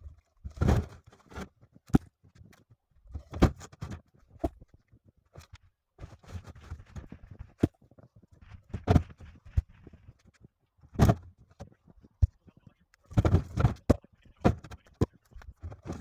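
Pine log ends being thrown out of a pickup bed onto a pile: irregular wooden thuds and knocks, a dozen or so, with softer scraping and shuffling between them.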